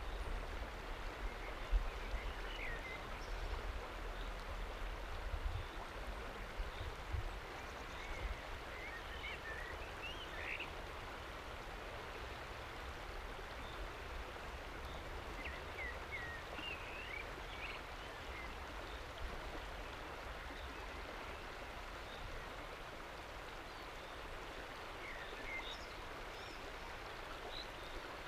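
River water flowing past and lapping against a rock shelf at the water's edge, a steady rush. Short high bird chirps come a few times, and a few low thumps fall in the first several seconds.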